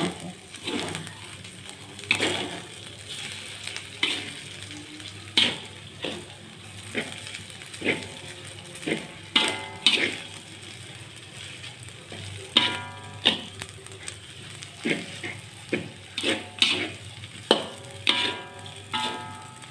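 Metal spatula scraping and clanking against a metal wok while stir-frying fried rice with egg, in irregular strokes about once a second, some of them ringing briefly, over the steady sizzle of frying.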